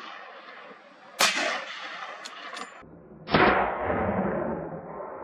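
Two gunshots about two seconds apart, fired at a running wild boar. The first is a sharp crack; the second is duller and its echo dies away over about a second.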